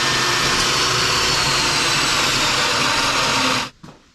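Power tool cutting steel stock: a loud, steady, noisy whine with a faint motor tone that sags slightly under load, cutting off abruptly near the end, followed by a couple of small clicks.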